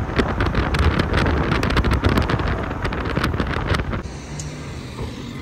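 A car on the move with wind buffeting the microphone and a quick run of knocks and rattles; about four seconds in the clatter eases off into a quieter, steadier road noise.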